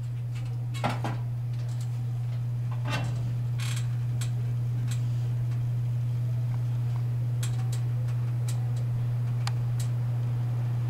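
Folding manual wheelchair creaking and giving scattered clicks and knocks as it is edged through a narrow doorway, over a steady low hum.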